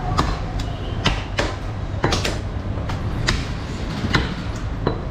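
Butchers' cleavers chopping beef on wooden tree-stump blocks: an irregular run of sharp chops, about two a second, each a knock on the wood, over a steady low hum.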